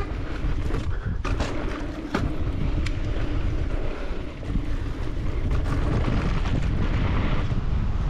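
Wind on the camera microphone during a fast mountain-bike descent, a steady rush over tyre rumble on the dirt trail. The bike gives a few sharp clacks as it rattles over the bumps.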